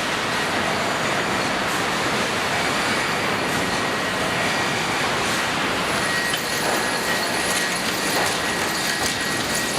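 Sawmill end-trimming line running: a steady, dense clatter of board conveyor and crosscut trim saws, with a faint steady high whine through it.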